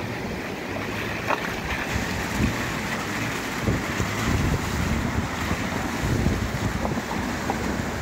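Wind blowing across the microphone outdoors: a steady rushing noise with irregular low buffeting gusts.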